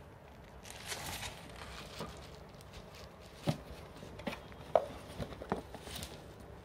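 Packaging being handled during unboxing: a brief rustle about a second in, then a handful of light knocks and taps, and another short rustle near the end.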